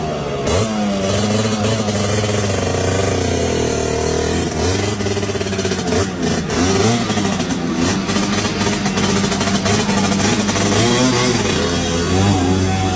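Engine of a customised Vespa scooter running and being revved as it pulls away, its note rising and falling with the throttle.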